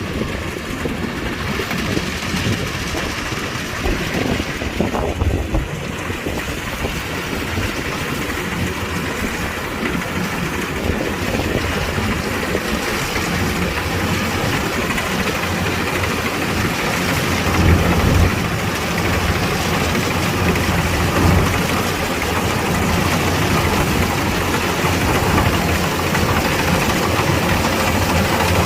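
Kubota DC-105X combine harvester's diesel engine running steadily with a low drone and machinery noise, gradually getting louder.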